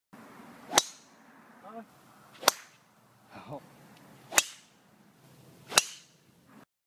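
Golf drivers striking balls off the tee, four separate shots each with a sharp crack, spaced about one and a half to two seconds apart.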